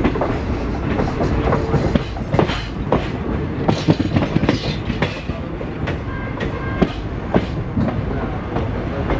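Passenger train running, heard from an open window of its coach: a steady rumble with irregular sharp clicks as the wheels clatter over rail joints.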